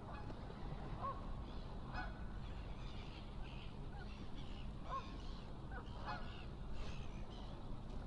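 Canada geese honking: a few short calls spread through, over a steady low rumble.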